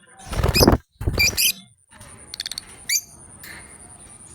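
Lovebirds chirping: sharp high chirps mixed with louder rustling in the first second and a half, then a quick run of short chirps about two and a half to three seconds in.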